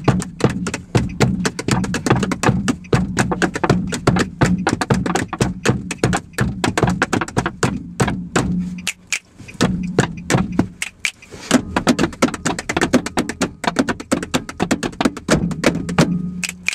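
Hands drumming a fast, busy beat on a car's dashboard and interior: quick rhythmic slaps and knocks, over a steady low hum. The beat thins out briefly about two-thirds of the way through, then picks up again.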